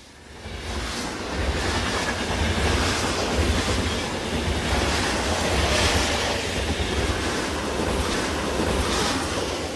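Loud, steady rumbling and rattling noise over a deep low hum.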